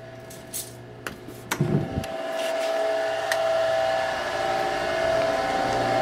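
A few light clicks, then about two seconds in a steady mechanical hum with a whine starts and holds: the boiler's circulator pump running while the burner is not firing.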